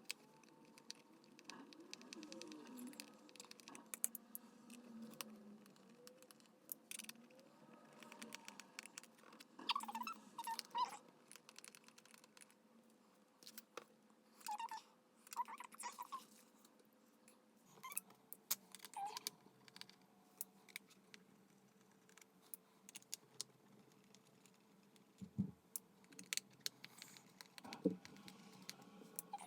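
Small precision screwdriver undoing the tiny pentalobe screws of a MacBook Air's bottom case, with scattered light metallic clicks and ticks as the driver turns and the screws are set down, and a few brief squeaks.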